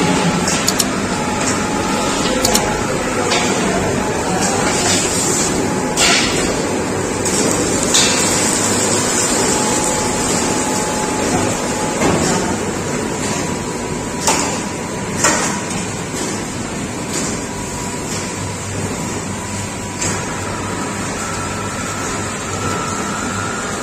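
Factory machinery for making fryums (slanty chips) running steadily, a continuous mechanical hum and hiss with scattered knocks and clanks.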